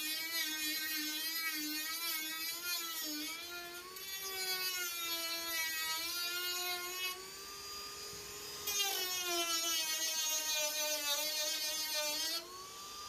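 Dremel rotary tool whining at high speed as its bit cuts away thin plywood bracing, the pitch wavering as the bit bites and eases off, and fading for a moment about halfway through. A steady hiss of the dust-collection hose held at the cut runs beneath it.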